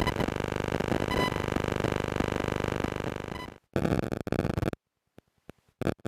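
5G NR cellular signal demodulated to audio by an RTL-SDR: a dense, steady electronic buzz with many stacked overtones for about three and a half seconds, then it fades out and breaks into short intermittent bursts and clicks with silent gaps between them.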